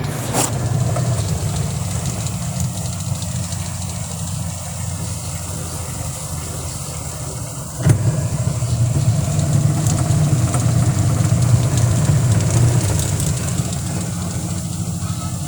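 Eureka automatic washing machine running its spin-dry cycle, the motor and spinning drum giving a steady hum. There is a click just at the start and a knock about eight seconds in, after which the hum is a little louder. The machine is working normally again after a no-power fault was repaired.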